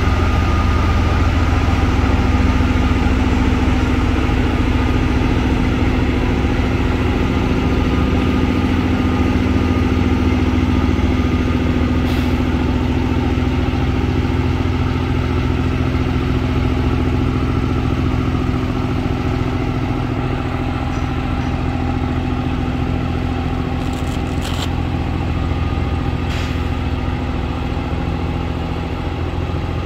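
Diesel engines of a Plasser & Theurer TG 80-M track maintenance vehicle and a coupled track machine running steadily as they pass and move away, slowly growing quieter. A few faint clicks come through about halfway and near the end.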